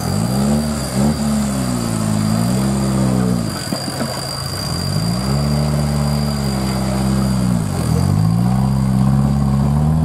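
Modified off-road 4x4's engine revving in repeated surges under load on a steep dirt climb. The pitch rises, holds and drops away several times, with a longer lull about four seconds in.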